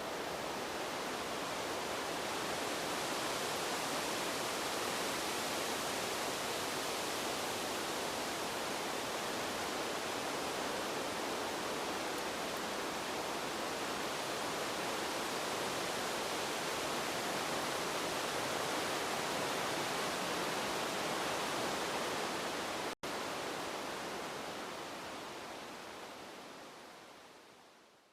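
Steady rushing wind, an even hiss with no distinct gusts. It cuts out for an instant about 23 seconds in and fades out over the last few seconds.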